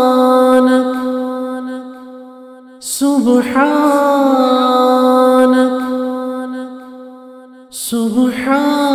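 Wordless vocal hum of long held notes, each one swelling in and fading away over about five seconds. A new note begins about three seconds in and another near the end.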